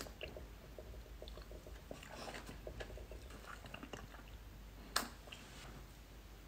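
Close-up mouth sounds of sipping a thick milk-tea dessert through a straw: soft wet clicks and slurps, with one sharper click about five seconds in.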